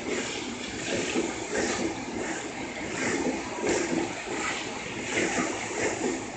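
E233 series 7000 electric commuter train pulling out and running past close by, a steady rushing rumble from its wheels on the rails with a loose beat of louder clacks about every half second to second.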